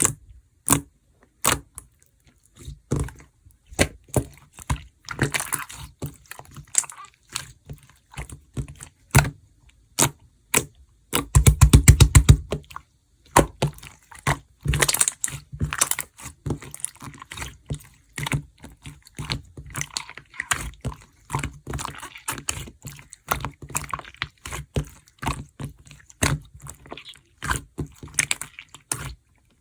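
Marbled slime being squeezed and stretched by hand, giving irregular sticky clicks and wet pops, with a quick run of loud pops about eleven to thirteen seconds in.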